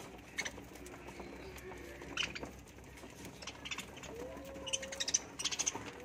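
A flock of budgerigars chirping and chattering while feeding, with scattered short, sharp chirps that come thickest in the last two seconds. Lower drawn-out notes run underneath.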